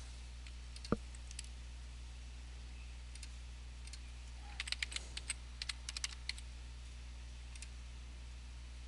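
Computer keyboard typing: a single click about a second in, then a quick run of about a dozen keystrokes a few seconds in, over a faint steady low hum. This is most likely sign-in details being entered.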